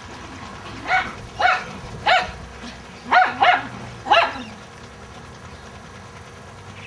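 A dog barking in play: six short, sharp barks over about three seconds, two of them in quick pairs, then the barking stops.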